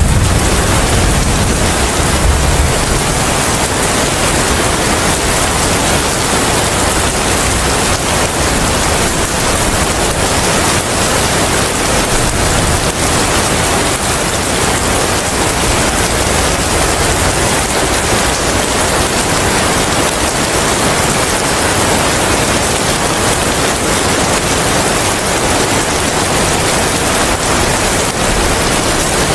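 Steady heavy rain with wind, an even hiss throughout. A low rumble of thunder dies away in the first two or three seconds.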